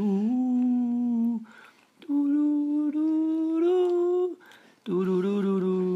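A person humming three long held notes as a mouth-made stand-in for the film's score, the middle note higher and lifting slightly at its end.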